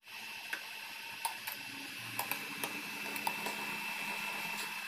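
Induction cooktop running under a small steel pot: a faint steady fan hiss with a thin high whine and a low hum. A few light taps come from a plastic spoon knocking the pot as beetroot pieces are stirred in water.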